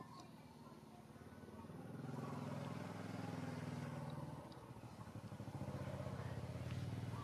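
A vehicle engine running, its low hum swelling about two seconds in, easing briefly around the middle, then swelling again.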